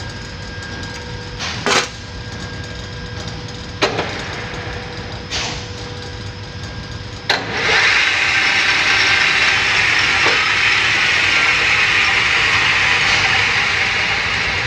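A few sharp clunks at the lathe's controls. Then, about halfway through, a click and the lathe's spindle starts up and runs with a loud, steady mechanical whir.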